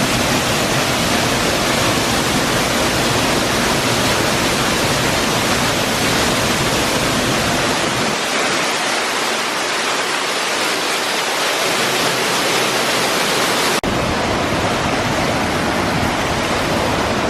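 Large waterfall swollen by heavy rain, falling hard at close range: a loud, steady rush of water. The sound drops out for an instant about fourteen seconds in.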